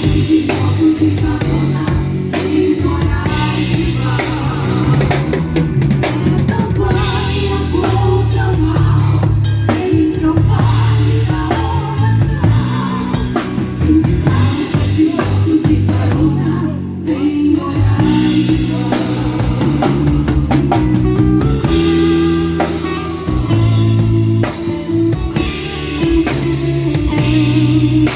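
Live band playing: drum kit and bass with a sung melody over them. The music drops out for a moment about two-thirds of the way through.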